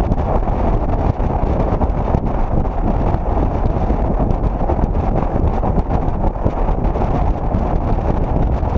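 Steady wind rumble on the microphone of a camera mounted outside a moving 2004 Chevrolet Monte Carlo, with the car's road and running noise underneath.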